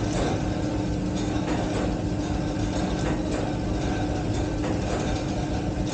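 Old oil mill's line-shaft drive running: an electric motor turning the overhead transmission shaft, pulleys and belts that power the presses, a steady mechanical hum with one constant tone and a few light knocks.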